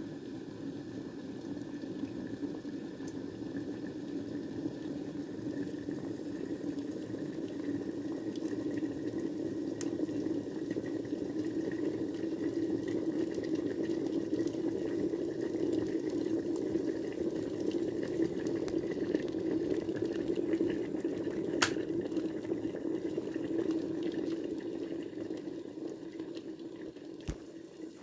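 Glass electric kettle at a rolling boil: a steady low rumble of bubbling water that swells over the first several seconds and dies down near the end. One sharp click about twenty seconds in.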